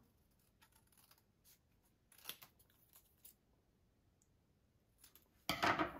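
Scissors cutting through a strip of printed card in a few faint, short snips, the loudest about two seconds in.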